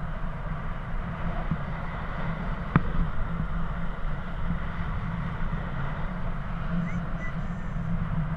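Airflow buffeting the camera microphone during paraglider flight, a steady low rumble of wind noise, with one sharp click about three seconds in.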